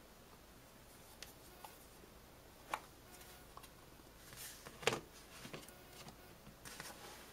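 Faint plastic clicks and rubbing as the halves and small parts of a Toyota flip-key remote shell are handled and pressed together. There is a sharp click about two and a half seconds in, the loudest one near five seconds in, and a patter of lighter clicks near the end.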